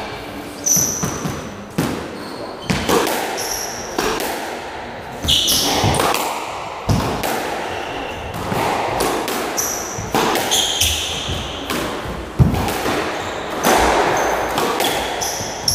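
Squash rally: the ball being hit by rackets and striking the walls and wooden floor again and again, each hit echoing around the court, with short high squeaks of shoes on the floor between hits.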